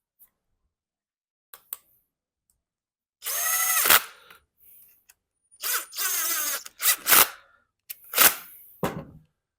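Cordless drill-driver running in short bursts, two longer runs followed by three quick ones, driving in the screws that hold the reassembled carburetor together.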